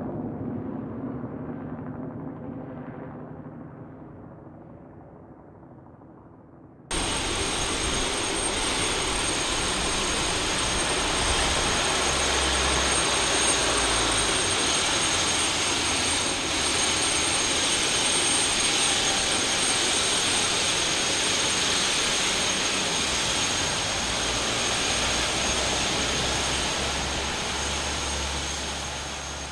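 A helicopter fades into the distance over the first few seconds. Then, abruptly, a Bell 206 JetRanger-type turbine helicopter hovers close by: loud, steady rotor and engine noise with a high, steady turbine whine, tailing off at the very end.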